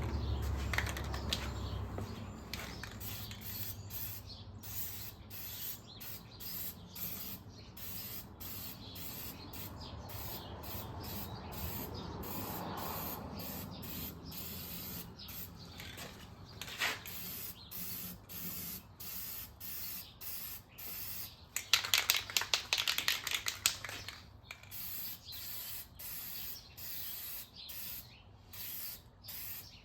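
Aerosol can of gloss black high-heat spray paint hissing in many short bursts as a wheel is sprayed. About two-thirds of the way through comes a couple of seconds of louder rattling.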